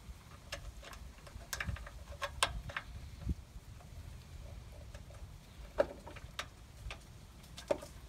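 Scattered light clicks and taps, about ten of them at irregular intervals, as a ground wire and cables are worked into a tight spot under the electric trailer jack's mounting base.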